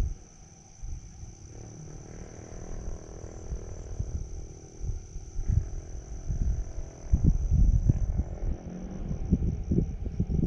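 Crickets trilling steadily in one continuous high note, with irregular low rumbles and thuds beneath that grow loudest past the middle.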